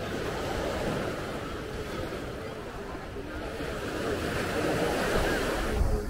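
Ocean surf washing onto a sandy beach, a steady rush of breaking waves that swells louder toward the end.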